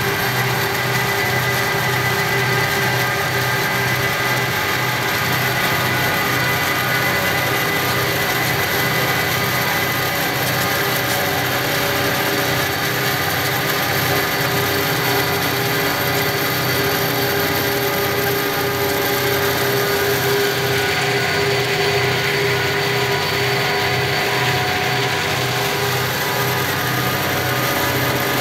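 Steady engine and road noise while pacing a diesel freight train from a moving car. A low pulsing engine beat and steady droning tones hold evenly, with no change in speed.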